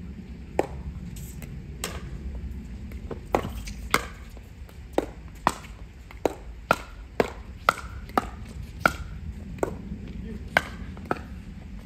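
Pickleball rally: a long string of sharp pops as paddles strike the hollow plastic ball back and forth, irregularly spaced at roughly one or two a second.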